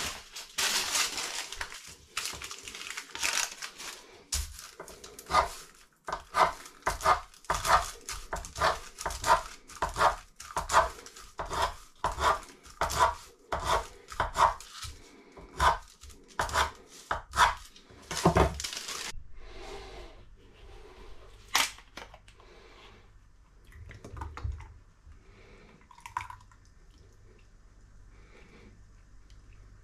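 A knife cutting slits in a strip of baking parchment against a kitchen worktop: a steady run of sharp taps, about two a second. They stop after about 18 seconds, and a few quieter clinks and handling sounds follow.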